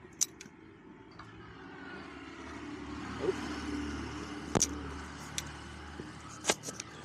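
A road vehicle going by, its steady rumble swelling and then easing around the middle, with a few sharp clicks and knocks.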